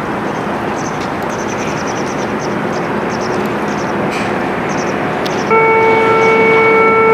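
Kawasaki Jetfoil running foilborne: a steady roar from its gas turbines and waterjets. About five and a half seconds in, a ship's horn starts one long, loud blast.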